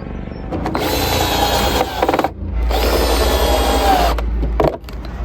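A power drill running in two bursts of about a second and a half each, with a steady whine and a short pause between them.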